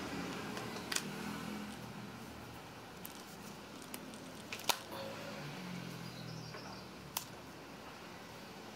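Plastic clicks and knocks of a pressure-washer lance being pushed and twisted onto its trigger gun's connector: several sharp clicks, the loudest about halfway through, over a faint low hum.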